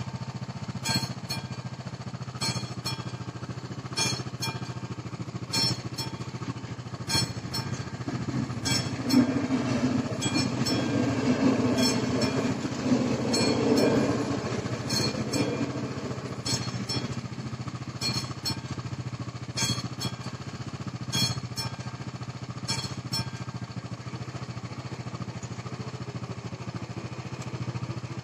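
Classic level-crossing warning bell striking at an even beat, about once every second and a half, and falling silent about five seconds before the end. A ČD class 471 double-deck electric unit passes over the crossing from about 9 to 16 seconds in, louder than the bell.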